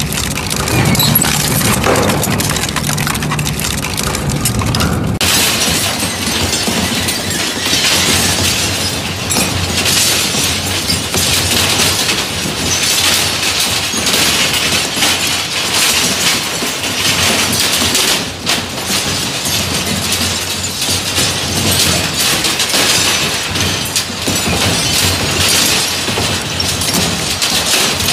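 Twin-shaft industrial shredder's toothed cutter rotors tearing up scrap steel: a continuous loud din of crunching, cracking and clanking metal with many sharp knocks. About five seconds in, the low rumble gives way to brighter, denser crackling as thin steel rods are shredded.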